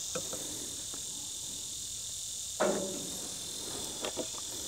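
Steady high-pitched chorus of insects, crickets among them, with one knock about two and a half seconds in and a few light clicks as a combination square and pencil are handled against a wooden rafter.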